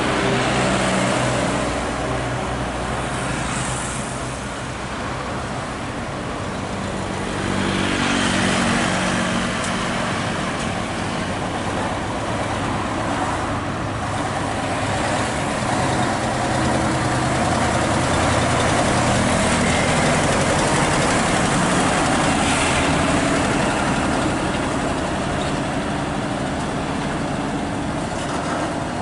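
Diesel engine of a Nissan Diesel heavy truck running as it pulls a loaded pipe trailer away and drives off, its engine note rising about eight seconds in as it accelerates, over passing road traffic.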